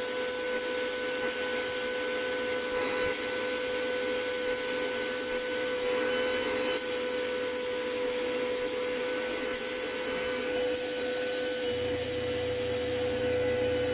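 Sandblast cabinet's blast gun firing grit steadily at an aluminium Yamaha TZR 125 engine casing: a continuous hiss of air and abrasive with a steady tone underneath.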